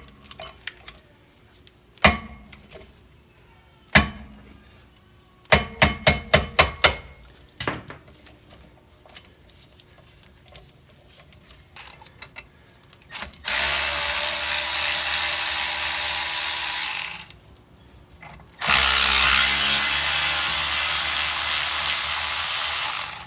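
Several sharp, ringing metal knocks and clanks in the first seven seconds. Then a power tool runs steadily and loudly in two long stretches, about four seconds each, cleaning rust off the car's rear wheel hub after the brake rotor has come off.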